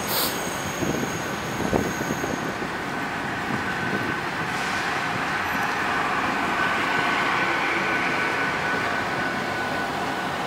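Great Western Railway passenger train rolling slowly through the station: steady running noise of wheels on rail with a thin steady whine, a few light clicks near the start, and a slight swell in the middle.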